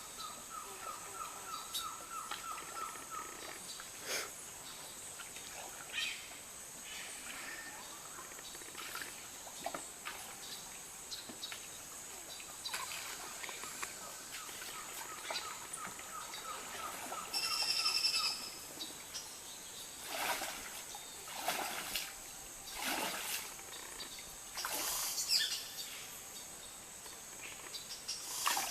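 Amazon rainforest ambience: a steady high-pitched insect drone, with a bird trilling a fast run of repeated notes near the start and again about halfway through, followed by a brief higher bird call. Several short swishing noises come in the second half.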